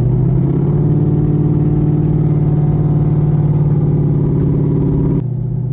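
Mustang drag car's engine running steadily on a slow warm-up drive, its note stepping up slightly about half a second in and dropping a little in level just before the end.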